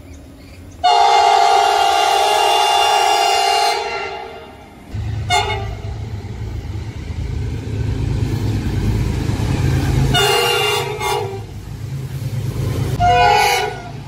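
A 2800 class locomotive's horn sounding several notes at once: one long blast of about three seconds, then a short toot, a blast of about a second and another short blast near the end. From about five seconds in, the later blasts sound over the steady low rumble of the approaching locomotive.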